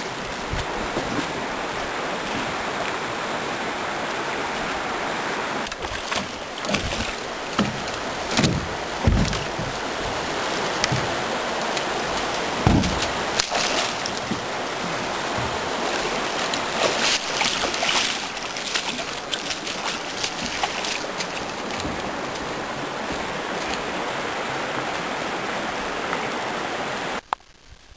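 Steady rush of a shallow, rocky stream, with occasional splashes and thumps as someone wades through it. The water sound cuts off abruptly about a second before the end.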